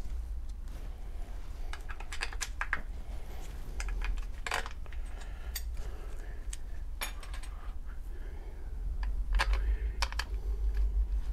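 Small metal bolts clicking and clinking, a few sharp ticks at a time with short gaps between, as 10 mm bolts are handled and set into a transfer case tail housing by hand. A steady low hum runs underneath.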